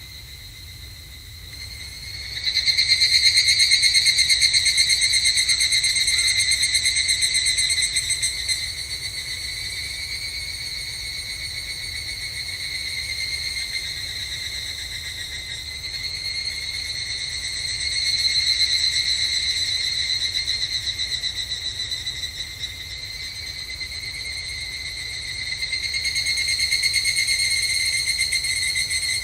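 Evening cicadas (higurashi) calling: high, ringing, rapidly pulsing calls that overlap in a chorus. A loud call comes in about two seconds in and eases off, and others swell up again near the middle and near the end.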